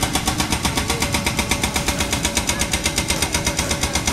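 Construction machinery hammering in a rapid, even rhythm of sharp strikes, roughly nine a second, over a running engine.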